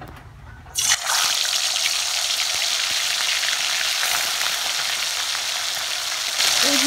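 Pomfret pieces going into hot oil in a kadai: a sudden loud sizzle about a second in, then steady frying hiss that swells again near the end.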